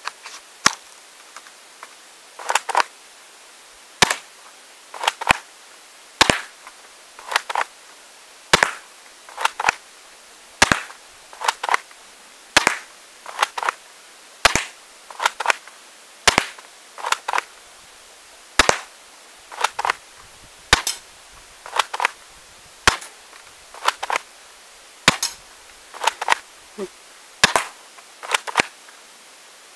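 Cheap plastic toy Uzi BB gun being fired over and over: sharp clacks about once a second, many of them in quick pairs.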